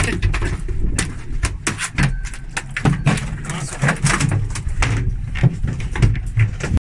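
A landed dorado (mahi-mahi) thrashing on a boat deck, its body slapping the deck in a rapid, irregular run of sharp knocks over a low rumble.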